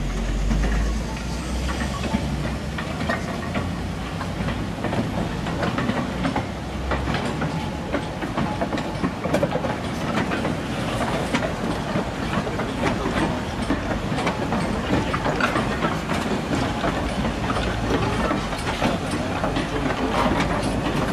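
Steam train running on the line: a steady rumble with many clicks of the wheels over the rail joints. The deep rumble is strongest in the first few seconds.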